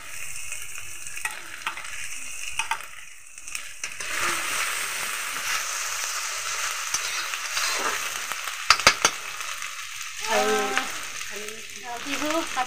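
Chopped onions and dried red chillies sizzling in hot oil in an iron kadhai, stirred with a metal spatula. The sizzle gets louder about four seconds in, and there are a couple of sharp clicks about two-thirds of the way through.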